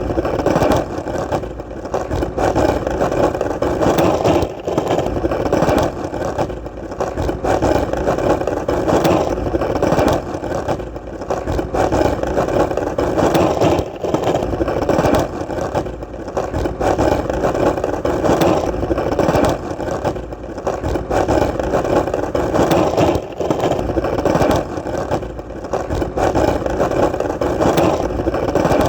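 Skateboard wheels rolling steadily over solid ground, a continuous rumble whose loudness swells and dips slightly every second or two.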